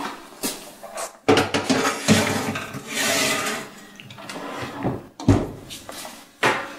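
Metal baking tray slid into an oven, scraping and clattering on the rack runners, then the oven door shut with a sharp thump about five seconds in, followed by a second knock a second later.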